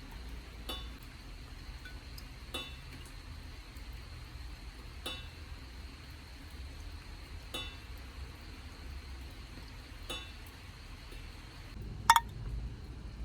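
Water dripping at a slow, steady pace, about one drop every two and a half seconds, each drop landing with a short, faintly ringing clink. A louder double clink comes near the end.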